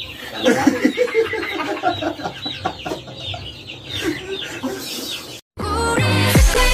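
A group of people laughing, a choppy run of cackling bursts. About five and a half seconds in it cuts off and pop music with a steady beat starts.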